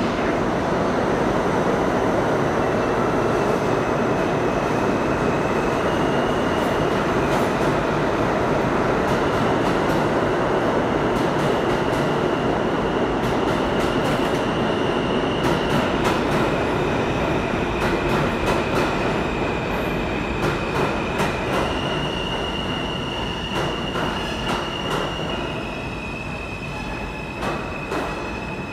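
New York City subway train pulling out of the station and running past along the platform: a loud rumble with high, steady wheel squeal that comes and goes. In the second half come irregular clicks of wheels over rail joints as the train draws away and the sound eases off.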